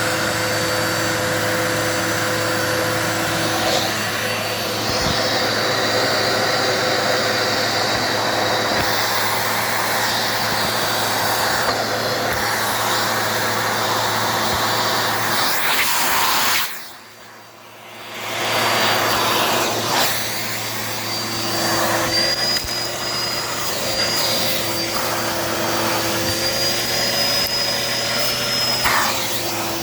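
Dirt Devil Multi-Surface vacuum cleaner running steadily with a motor drone and a high whine. A little past halfway it cuts out for a second or two, then comes back up and runs on with the whine wavering in pitch.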